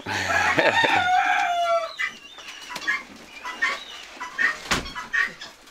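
Chickens clucking and calling, busiest in the first two seconds with one longer held call, then scattered short clucks.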